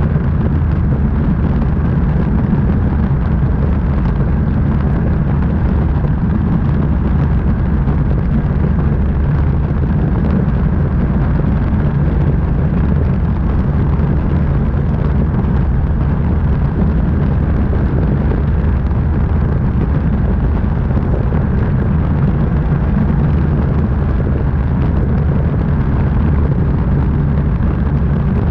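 Steady in-flight noise of a light aircraft: a loud, constant engine-and-propeller drone mixed with rushing air, heard from under the wing.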